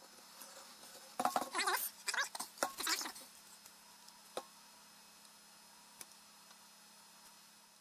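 Wood glue being squeezed from a bottle onto the wood, sputtering and squishing in a run of short bursts for about two seconds, then a couple of light clicks.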